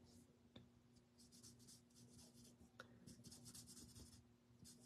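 Faint scratching of a marker tip stroking over cardstock in a run of short strokes, over a steady low hum.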